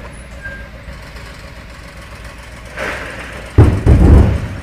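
Explosion: a sudden, very loud low boom about three and a half seconds in, rumbling on for about a second over steady background noise.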